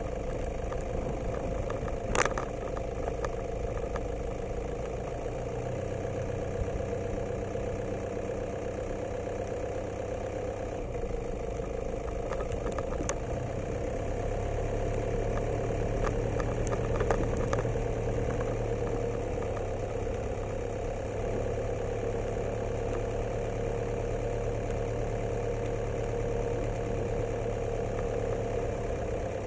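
A vehicle's engine running steadily at low revs while the vehicle moves slowly along a sandy track, its low hum shifting a little a few times. There is a sharp knock about two seconds in and a few faint clicks later.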